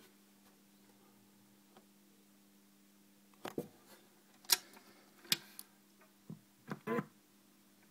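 Sharp clicks and knocks of a turntable tonearm being handled and its stylus lowered onto a spinning 7-inch single, starting about three and a half seconds in, over a faint steady hum.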